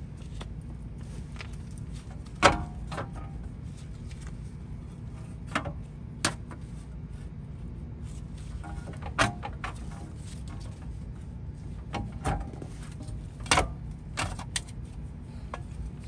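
Scattered sharp metallic clinks and knocks as a new front hub bearing assembly is handled against the steering knuckle and its mounting bolts are lined up. The loudest knock comes about two and a half seconds in, over a steady low background hum.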